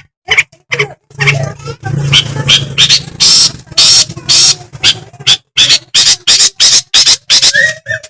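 Long-tailed shrike (cendet) singing: a fast run of short, scratchy notes, thickening into a dense chattering stretch about a second in before breaking back into separate notes.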